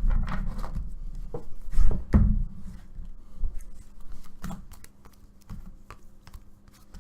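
Trading cards being handled on a table: light taps, slides and rustles, with a louder thump about two seconds in.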